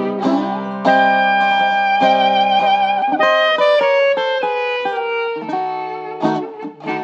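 A National Tricone resonator plectrum guitar played solo in a 1920s jazz style. It opens with a quick slide up, then comes strummed chords and a descending run of single notes, which ring on.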